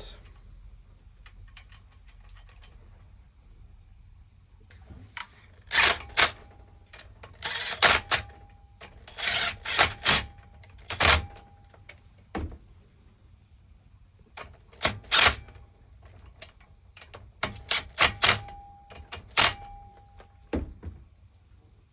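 Quiet for about five seconds, then bursts of sharp metallic clicking and clanking from hand tools as three bolts are put back and tightened on a pump's valve block, with a faint ringing tone between some of the clicks.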